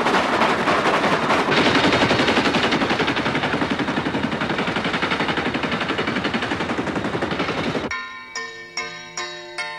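Industrial percussion: a harsh, dense metallic clatter of rapid even strokes, several a second, that cuts off abruptly about eight seconds in. A struck metal hoop then rings out in separate pitched, bell-like strikes, two or three a second.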